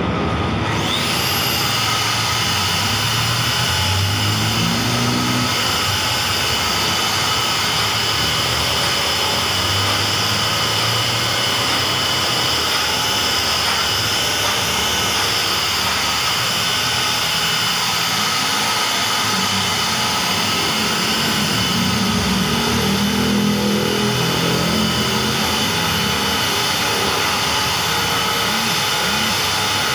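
Electric rotary car polisher spinning up about a second in, then running steadily with a high whine as its buffing pad works over a car's painted door panel.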